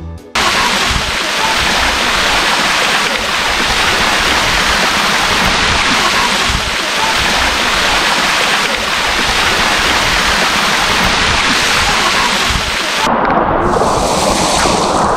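Loud, steady rush of a waterfall pouring into a rock pool. About 13 seconds in it turns duller, heard from right under the falling water, with spray splashing close by.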